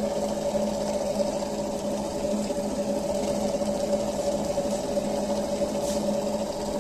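Reverse-osmosis water purifier running, its booster pump giving a steady mechanical hum. The unit has just been repaired, and the hum is only a light one.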